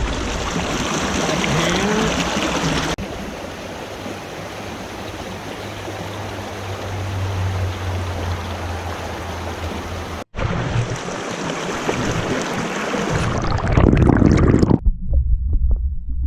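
Small mountain creek rushing and trickling over rocks, a steady watery hiss that jumps in level twice at edits. Near the end the rushing gives way to a low, muffled rumble.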